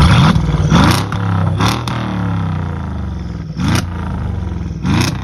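Mercedes S500 coupé's twin-turbo V8, converted to S65 AMG looks, idling through its modified exhaust and revved in about five short throttle blips. Each blip rises quickly and drops back to idle.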